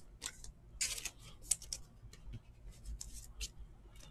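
Trading cards and a clear plastic card holder being handled: faint, scattered clicks and rustles of cardboard and plastic, a handful over a few seconds.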